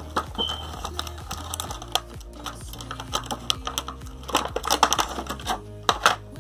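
Clear plastic blister packaging being handled, giving irregular clicks and crackles that come thickest about two-thirds of the way in and again near the end, over background music.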